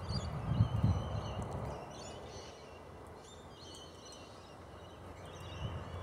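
Outdoor ambience of birds chirping now and then in the background, with a low rumble through the first second and a half.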